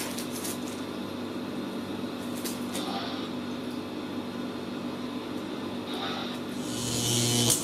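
A steady low electric hum with a few faint clicks. About seven seconds in, a louder hiss and a deeper hum swell up.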